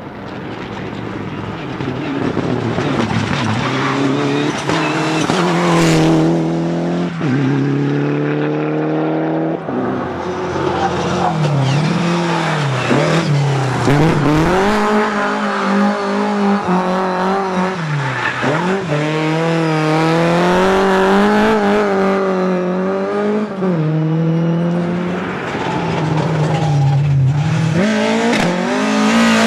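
Rally car engine driven hard, swelling in as it approaches. Its pitch climbs and drops again and again as it shifts gears and lifts off and gets back on the throttle.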